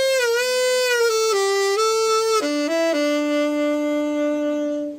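Selmer Super Action tenor saxophone being play-tested after a full overhaul: a flowing melodic phrase, then a few short notes and a long held low note that stops near the end.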